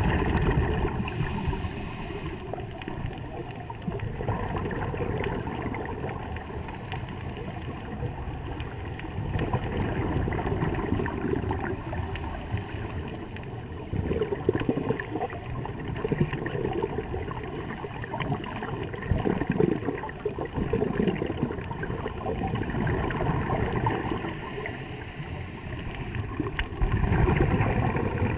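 Underwater scuba sounds: a diver's regulator breathing and exhaled bubbles gurgling, swelling and fading every few seconds over a steady rush of water noise.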